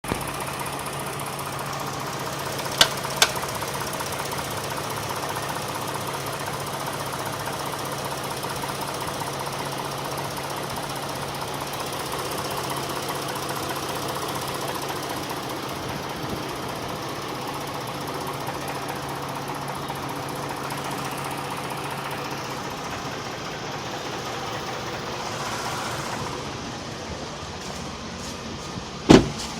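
V6 engine idling steadily with a knocking sound. Two sharp clicks come about three seconds in, and a louder one near the end.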